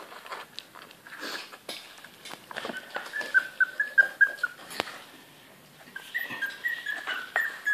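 Bichon Frise–Yorkshire Terrier cross puppy whimpering: a run of short, high, slightly falling whines about three seconds in, and more starting again near the end. Light clicks and taps sound between them.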